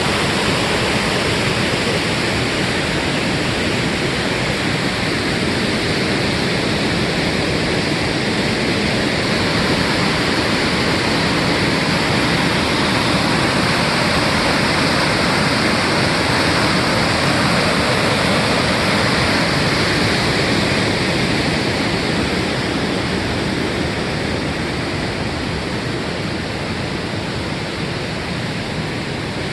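Waterfall rushing: a loud, steady roar of falling water that barely changes.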